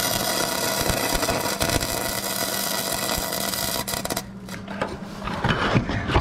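Electric arc welding: a steady, dense crackle with a low hum as a nut is welded onto the stub of a snapped exhaust-manifold bolt to back it out of the cylinder head. The crackle stops suddenly about four seconds in, and a few light knocks follow.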